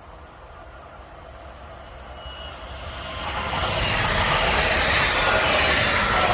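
Electric multiple-unit train approaching and passing on the track, a broad rush of wheels on rail that swells from about two seconds in and stays loud to the end, with faint high thin squealing tones.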